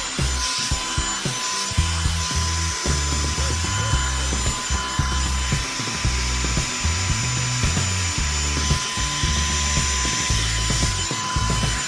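Revlon One Step hair dryer brush running steadily on its high setting, a constant motor whine and rush of air, with the brush's bristles rubbing through hair in many short strokes.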